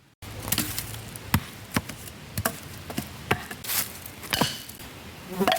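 A series of about ten sharp, irregular knocks and clicks over a faint hiss.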